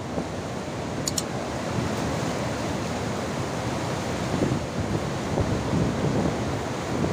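Cyclone floodwater rushing and churning in a steady wash of noise, with gusts of storm wind buffeting the microphone.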